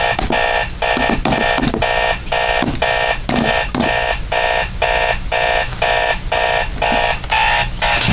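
Electronic alarm clock beeping, a harsh multi-tone beep repeating steadily at about two to three beeps a second.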